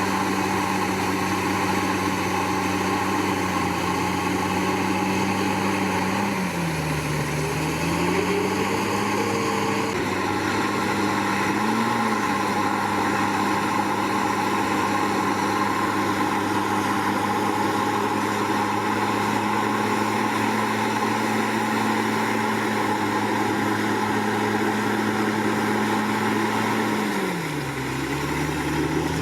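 Komatsu D61PX bulldozer's diesel engine running steadily at working speed. Its pitch sags briefly and recovers twice, about seven seconds in and again near the end.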